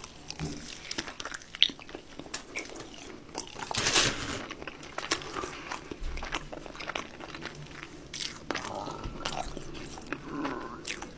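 Close-miked biting and chewing of KFC Double Down fried chicken, the breading crunching and crackling with wet mouth sounds, with the loudest crunch about four seconds in.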